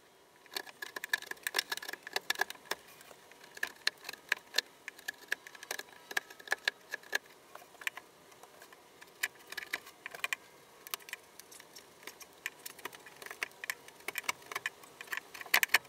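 Hand chisel and gouge paring out a hinge mortise in the edge of a wooden board, pushed by hand: a continuous run of small, irregular crisp clicks and scrapes as the edge cuts and lifts chips of wood.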